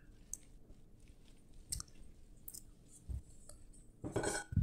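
Silicone spatula stirring sticky coconut fritter dough in a glass bowl: faint squishing and scraping with scattered soft clicks and a couple of dull thumps. There is a louder burst of noise near the end.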